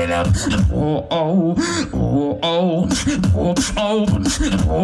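Solo beatboxer performing live into a microphone: sharp vocal snares and clicks over a deep bass line, with a wavering hummed melody on top.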